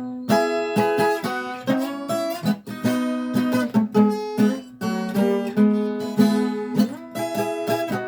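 Viola caipira (Brazilian ten-string folk guitar) playing a solo: fast runs of plucked notes mixed with strummed chords.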